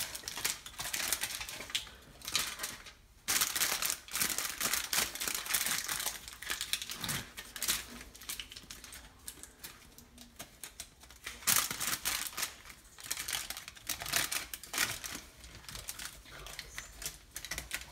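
Aluminium foil crinkling and crackling in irregular bursts as it is pressed and crimped tightly around the rim of a pressure cooker, sealing it so no steam can escape during dum cooking.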